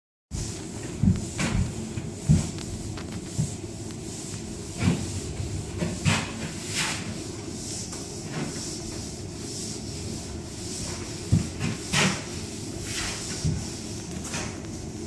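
Steel taping knife scraping joint compound onto drywall seams and against the edge of a mud pan, in irregular strokes with occasional sharp taps. A steady low hum runs underneath.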